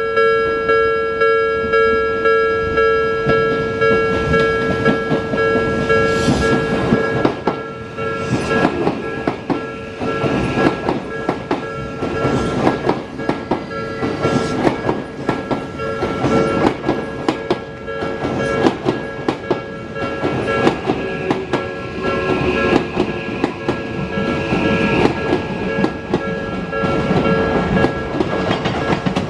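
Level-crossing warning bell ringing about twice a second throughout. From about six seconds in, an Odakyu 1000 series ten-car electric train runs over the rail joints, its wheels clacking in quick, uneven beats under the bell.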